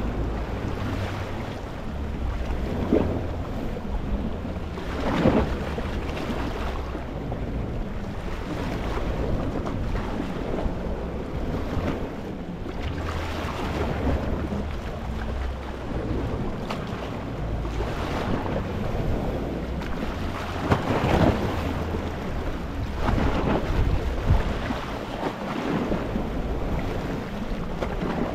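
Gentle sea waves lapping and splashing over rocks, a surge every few seconds over a steady wash of water. A low rumble of wind on the microphone runs underneath.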